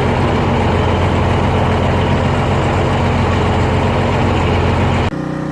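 Gasoline pressure washer running, its engine hum under the steady hiss of the spray. About five seconds in the sound cuts off abruptly and a quieter, steadier engine hum takes over.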